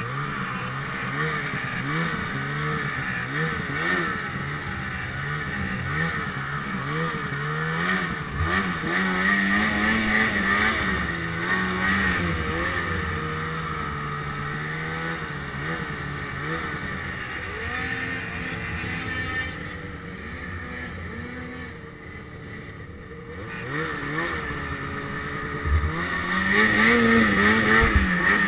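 Ski-Doo Summit XP 800 two-stroke snowmobile engine revving up and down as the throttle is worked through deep snow. It eases off for a few seconds in the latter half, then opens up louder again near the end.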